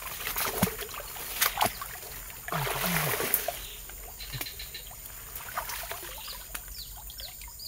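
Rubber boots wading through a shallow muddy stream: water sloshing and splashing with a few sharp clicks, loudest about three seconds in. Short high bird chirps come in over the second half.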